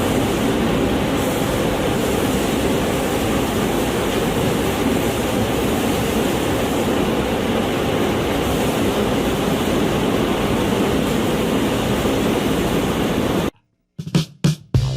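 Machinery running with a steady, even rushing noise and no rhythm, cutting off suddenly near the end.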